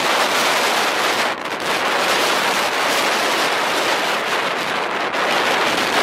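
Steady jet engine noise from a taxiing Boeing 777-300ER's GE90 turbofans, an even rushing sound with no clear pitch.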